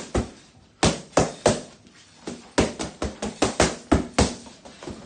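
Boxing gloves smacking into focus mitts in quick combinations: a rapid run of sharp slaps, many in fast pairs, with short pauses between flurries.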